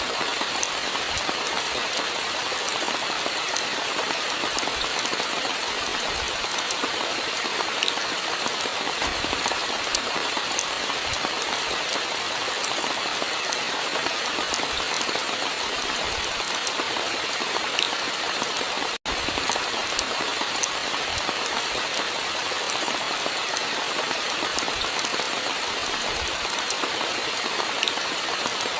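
Steady rain falling, a dense hiss with many individual drops ticking sharply and an occasional low thud. It cuts out for an instant about two-thirds of the way through.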